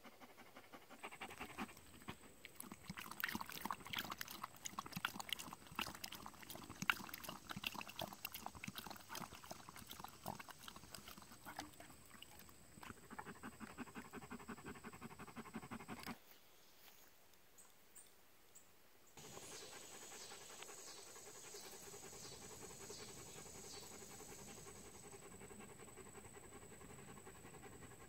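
Greyhound panting quickly and steadily, with a thin high tone behind it. About 16 seconds in the panting stops abruptly, leaving a quieter steady hiss.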